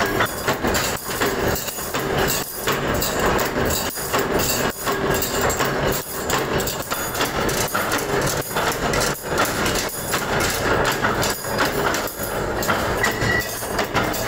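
Metalworking machinery in a stainless steel spoon factory running with a dense, loud clatter in an uneven rhythm.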